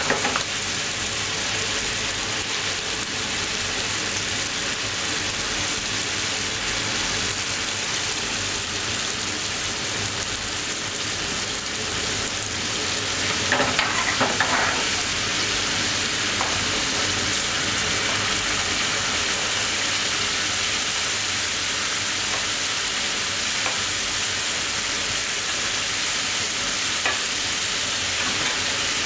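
Chicken Madras curry sizzling steadily in a pan, with a louder burst of sizzling lasting about a second about halfway through.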